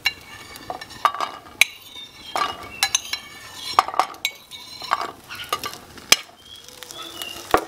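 A metal spoon clinking and scraping against a ceramic plate as chilies, garlic cloves and kencur are pushed off it onto a dry flat pan over a grill, with irregular light taps and knocks as they land and are moved about on the pan.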